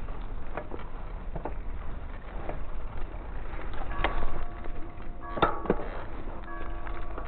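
Mountain bike ridden over a rough, rutted dirt track: a steady low rumble of wind and tyres at the handlebar-mounted camera, with clicks and rattles from the bike over bumps. There is a louder clatter about four seconds in and again about five and a half seconds in, with a few brief squealing tones.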